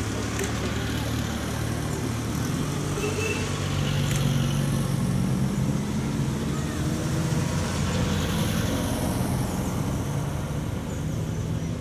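Small classic Fiat 600-family cars, among them a Fiat 600 Multipla, passing one after another with their small engines running steadily. A couple of short clicks come near the start and about four seconds in.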